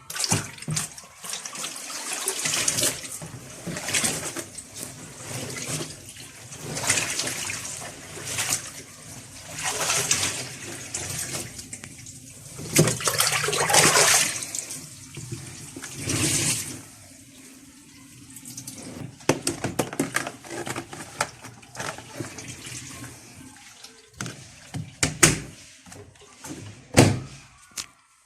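Water sloshing and splashing in a twin-tub washing machine, swelling and fading every second or two. A few sharp knocks come near the end.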